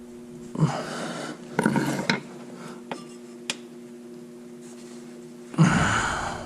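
Metal tools clanking and scraping against a stuck spin-on oil filter in several short bouts, with two sharp ticks between them and a steady low hum underneath; the loudest bout comes near the end.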